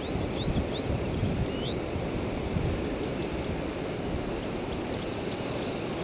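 Steady wind rumble on the microphone, with a few thin, high chirps from a small bird, several close together in the first two seconds and one more near the end.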